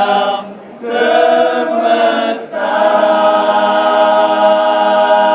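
A group of voices chanting or singing in unison in long held notes: a phrase ends about half a second in, another runs to about two and a half seconds, and a third long note is held through to the end.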